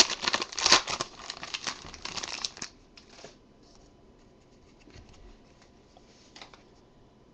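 Plastic wrapper of a trading-card pack crinkling and tearing as it is pulled open, with a dense crackle for the first two and a half seconds, then only faint, scattered rustles.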